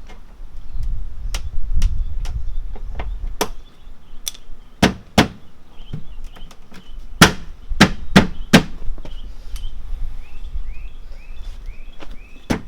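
Sharp knocks and slaps of a carbon fiber rear diffuser panel being pushed and banged up into its retaining clips under a car's rear bumper, the clip not catching. About a dozen knocks at uneven spacing, the loudest bunched in the middle, with low rubbing and handling noise at the start.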